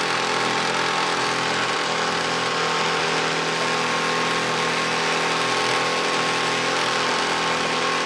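Boat motor running steadily under load while towing a floating dock, its engine tone constant, with water churning in the wake.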